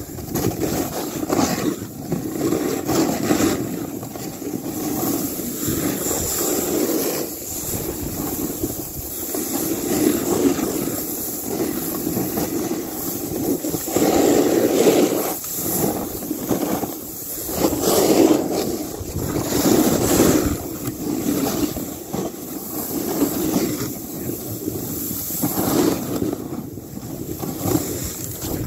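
Snowboard sliding through soft, loose snow on a descent: a rushing whoosh that swells and fades as the board turns, with wind buffeting the microphone.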